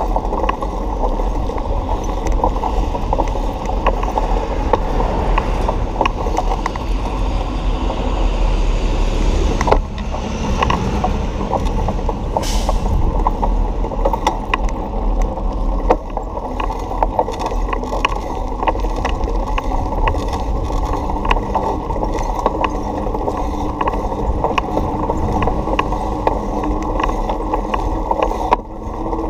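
Bicycle ride on a city street: a steady low rumble of tyres on asphalt and wind, with many small clicks and rattles from the bike going over bumps.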